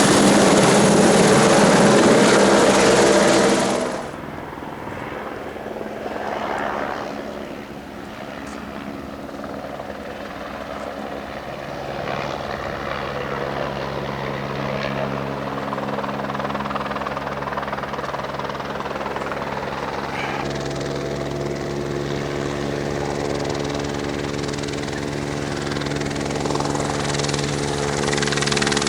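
Helicopter running. It is loud at first, drops suddenly about four seconds in, then settles into a steady droning hum that strengthens twice and builds up again near the end.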